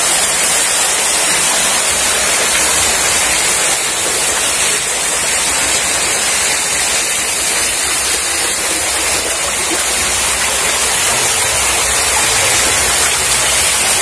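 Water pouring down from a resort pool's artificial waterfall, falling close over the microphone: a loud, steady rushing hiss.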